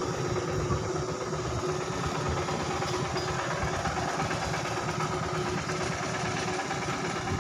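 An engine idling steadily, with a rumbling low end.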